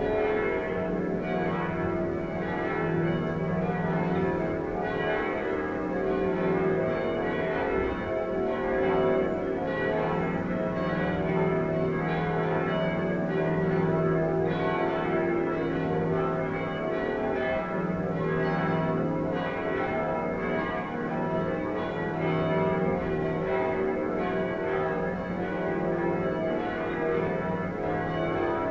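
Several church bells of different pitches ringing a festive peal together, their strikes overlapping continuously, with a deep bell swelling and fading every second or two beneath the higher ones.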